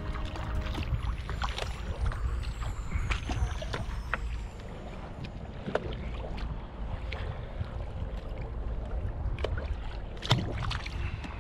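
Wind buffeting the microphone and water sloshing around a sit-on-top fishing kayak at sea, with scattered small clicks and knocks from hands handling rod and tackle on deck. One sharper knock comes near the end.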